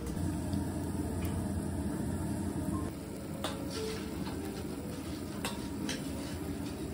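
Steady sizzling of food cooking at a restaurant table, with a few light clicks scattered through it.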